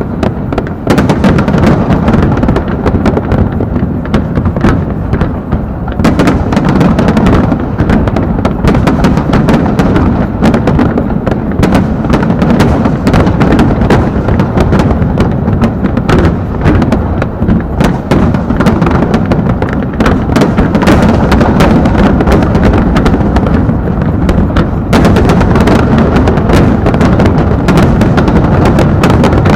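Aerial fireworks going off in a rapid, continuous barrage of bangs and crackles, very loud. The bursts grow denser about six seconds in and again near the end.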